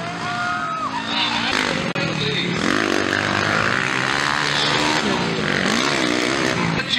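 Motocross dirt bike engines running hard on the track, their pitch rising and falling as riders rev through corners, with a brief sudden drop about two seconds in.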